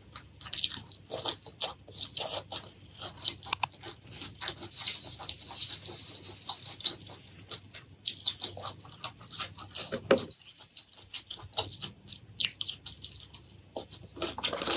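Close-miked eating: a person biting, crunching and chewing seafood, with many sharp irregular clicks and crunches.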